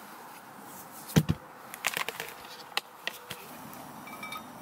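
Stanley cooler lid being shut with a heavy double thud about a second in, followed by a few light clicks and knocks as cookware is handled.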